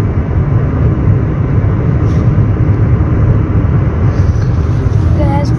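Loud, steady rumble of road and engine noise heard from inside a moving car.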